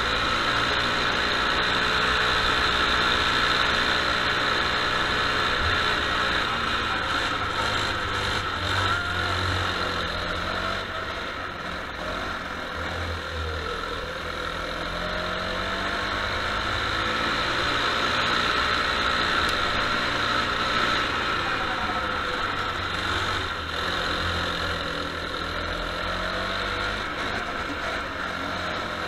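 Go-kart engine running on a lap, its pitch repeatedly rising as the kart accelerates and falling as it slows for corners, heard from a camera mounted on the kart.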